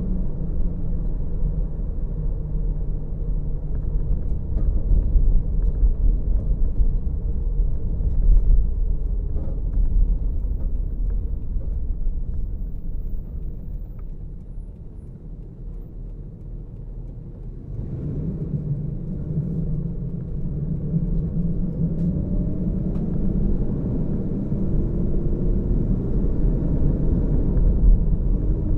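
Steady low rumble of a car driving, with road and engine noise. The rumble dies down for a few seconds about halfway through while the car waits at a red light, then picks up again with a rising engine note as the car pulls away.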